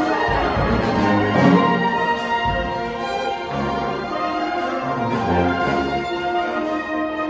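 Student symphony orchestra playing sustained chords, brass to the fore over the strings, with a few low, heavy strokes in the first three seconds.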